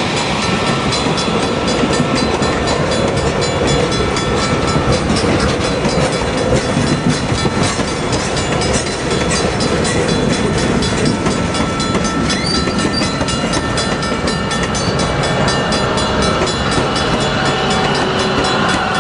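Napa Valley Wine Train passenger cars rolling past a grade crossing, their wheels running steadily on the rails, while the crossing signal's bell rings continuously.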